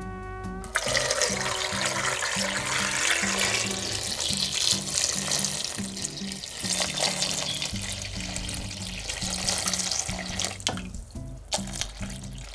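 Water running from a kitchen tap into a sink, starting about a second in and shutting off near the end, followed by a few drips.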